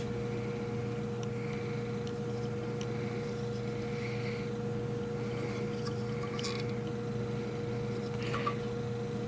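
Steady low electrical hum with faint background hiss, broken by a few soft, faint clicks.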